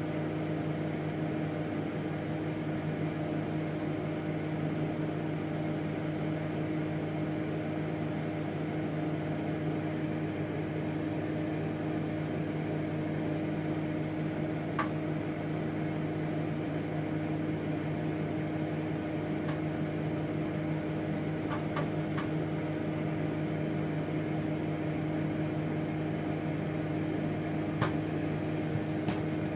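Samsung microwave oven running with a steady hum. A few isolated sharp pops come from about halfway through, a few more near the end: the first kernels of microwave popcorn starting to pop.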